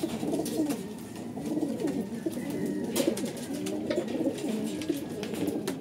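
Several domestic racing pigeons cooing, with overlapping, wavering coos, and scattered light clicks.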